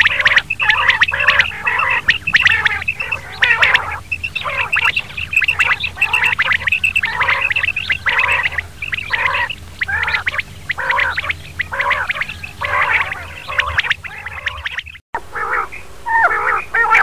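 Recorded quail (batair) calls, many short notes repeated rapidly and overlapping, as played for luring quail when hunting. A steady low hum runs under the calls, and the sound cuts out briefly about fifteen seconds in.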